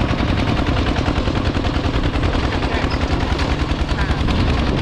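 Two-wheel walking tractor's single-cylinder engine running steadily under load while pulling a trailer, with a rapid, even chugging.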